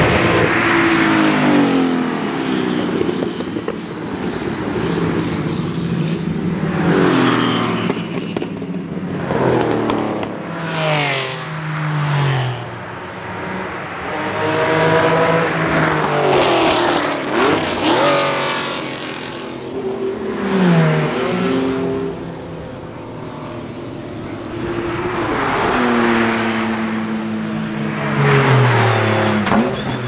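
Porsche 911-family racing cars (935, Carrera RSR, 911 GT1), each with a flat-six engine, passing one after another at speed. The engines climb in pitch as they accelerate and drop sharply as each car goes by, several times over.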